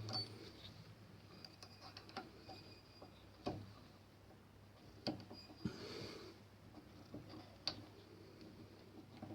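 Faint, scattered metallic clicks and light knocks, about half a dozen, from tools and metal parts being handled as the fixture holding a revolver cylinder is unscrewed and taken apart, with a brief rustle near the middle.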